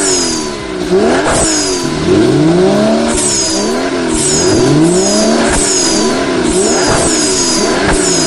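Vehicle engine sound effect revving over and over, its pitch rising and falling in a quick repeating loop about twice a second, with a couple of longer rising revs.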